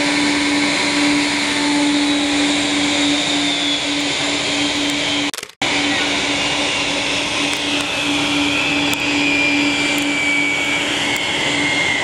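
Bombardier Dash 8 Q400's Pratt & Whitney PW150A turboprops droning as it climbs away after takeoff: a steady hum under a high hiss. The sound cuts out for a moment about five seconds in, then steady aircraft engine noise resumes, with a high whine slowly falling in pitch near the end.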